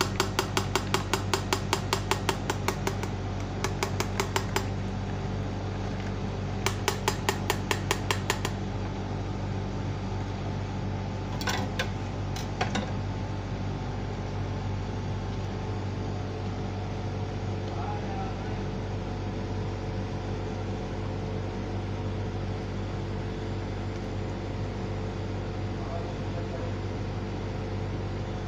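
A steady low hum, with runs of rapid, evenly spaced clicks, about five a second, in the first eight seconds or so, and two single knocks a few seconds later.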